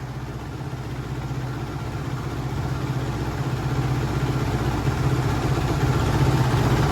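2015 Kawasaki KX450F's single-cylinder four-stroke engine running at a steady low speed, growing gradually louder.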